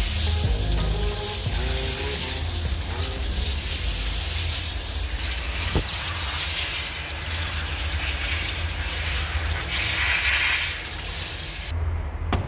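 Water hissing from a handheld shower sprayer onto a dog's wet coat, a steady spray that cuts off suddenly about a second before the end. Background music with a low bass beat runs underneath.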